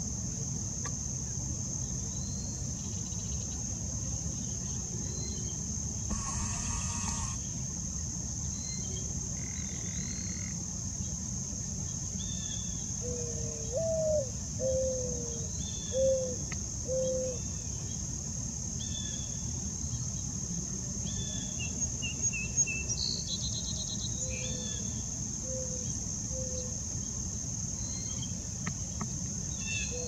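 Mourning dove cooing: a run of four low, soft coos about halfway through, the first sliding up and back down, then a fainter run of three coos later. A steady high insect trill runs under it, with short chirps from other small birds.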